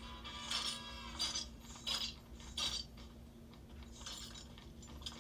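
Cartoon sound effects heard through a TV speaker: a run of sharp metallic clinks and clanks, about one every 0.7 s for the first three seconds, then fainter ones.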